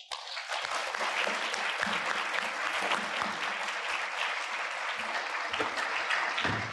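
Audience applauding, steady clapping that starts at once and dies down near the end.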